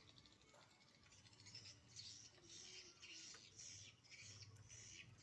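Near silence: faint, high-pitched chirping repeating about three times a second in the background, over a faint low hum.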